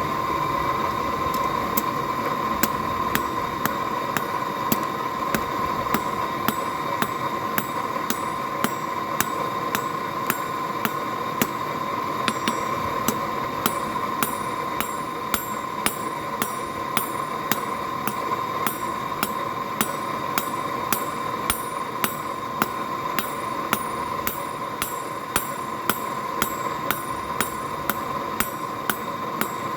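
Blacksmith's hand hammer striking hot mild steel on an anvil at an even pace of about two blows a second, over a steady high whine.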